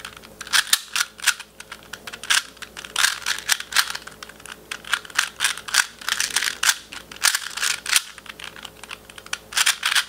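Plastic 2x2x2 Rubik's cube being turned fast by hand while it is solved: an irregular run of light clicks and clacks, several a second, as the layers snap round.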